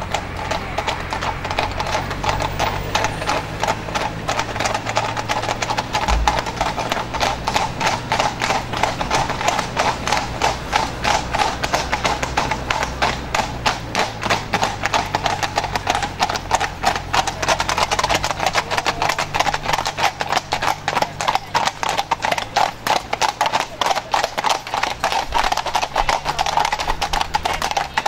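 Hooves of a four-horse team pulling a carriage, clip-clopping in a fast, steady, dense rhythm.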